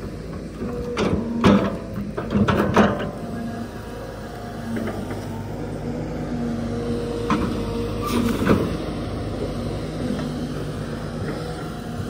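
SANY hydraulic excavator working under load: the diesel engine and hydraulic pump run with a steady drone and whine that swells and eases as the bucket digs around a large tree stump. There are several sharp knocks in the first three seconds, and a few more later, from the bucket striking earth and roots.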